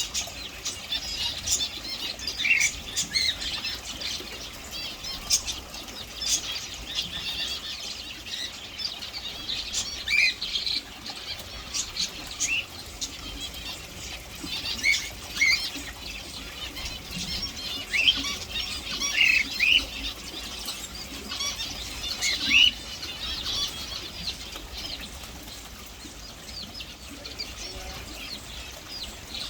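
Birds chirping in many short, high calls, mixed with frequent brief rustles and wing flutters.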